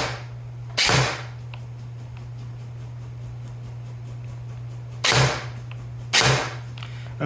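Airsoft electric gun's motor and gearbox cycling in three short bursts, about a second in and twice near the end, over a steady low hum. The gearbox is grinding, a sign that something is clearly wrong, which the owner suspects is the motor height or the bevel gear shimming.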